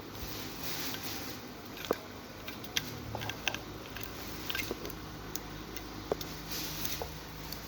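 Small sharp clicks and taps at irregular intervals, with a couple of brief rustles, from hands handling the plastic and metal parts of a Realme C11 smartphone during disassembly.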